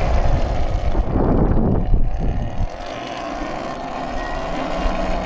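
Wind buffeting the microphone during a ride on an electric dirt bike, easing off about two and a half seconds in, with a faint steady motor whine underneath.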